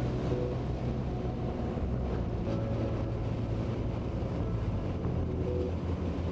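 Harley-Davidson Freewheeler trike's Milwaukee-Eight 114 V-twin engine running steadily at cruising speed.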